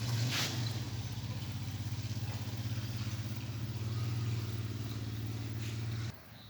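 A small engine running steadily with an even pulsing hum, cutting off suddenly near the end. A short hiss sounds just after the start.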